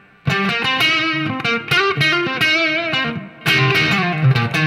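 Epiphone Les Paul Standard Pro on its neck pickup, played through a Marshall MG30FX amp on the crunch channel with reverb: a lick of picked single notes with some vibrato, a short break about three seconds in, then more notes.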